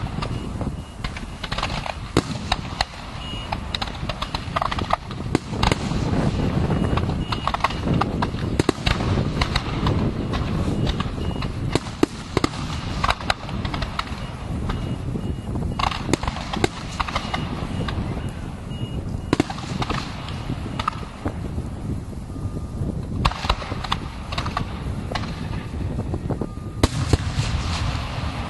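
Aerial fireworks display: a dense, continuous run of sharp bangs and crackling bursts over a low rumble of explosions, with a thicker flurry of bangs near the end.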